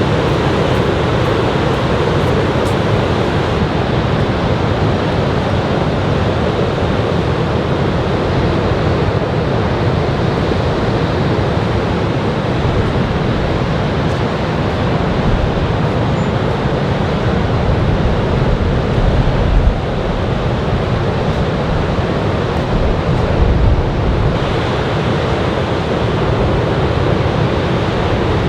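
Ocean surf from a typhoon swell breaking continuously, a steady wash of noise, with wind buffeting the microphone in a couple of brief gusts about two-thirds of the way through.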